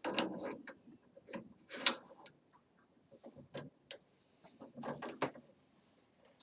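Metallic clicks and scrapes of a Remington 700 bolt being handled and slid into the receiver while checking headspace with a no-go gauge and a paper shim. One sharp click about two seconds in is the loudest, with another cluster of clicks near five seconds in.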